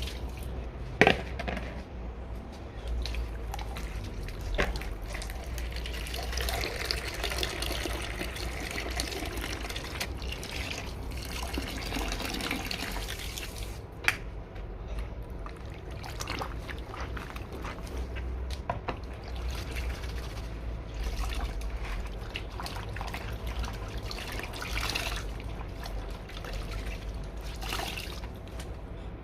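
Water trickling and splashing, as in washing something by hand at a sink, with two sharp knocks, one about a second in and one about halfway through.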